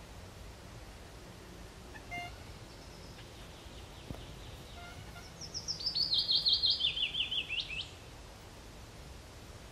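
A bird singing outside: a short chirp about two seconds in, then a loud, rapid series of sharp notes stepping down in pitch for about two and a half seconds, over a low steady hum.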